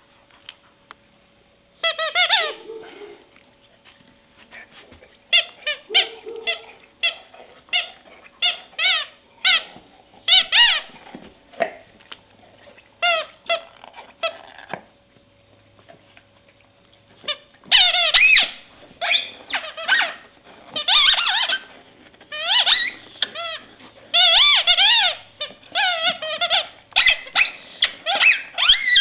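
Squeaky dog toy being chewed: short high squeaks, scattered at first, then coming in quick, steady runs over the last ten seconds or so.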